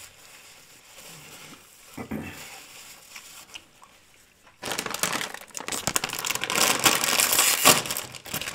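A plastic Tostitos tortilla-chip bag crinkling loudly as it is picked up and handled, starting about halfway through after a stretch of faint small sounds.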